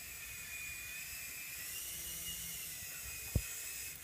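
Blade CX Scout coaxial RC helicopter's small electric motors and rotors whining steadily in flight, the pitch rising slightly and then dropping back. A single sharp thump a little over three seconds in.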